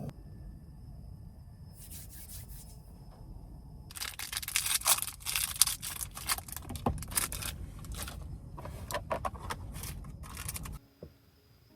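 A run of quick scraping and rustling handling noises over a low steady rumble. The rumble cuts off suddenly near the end.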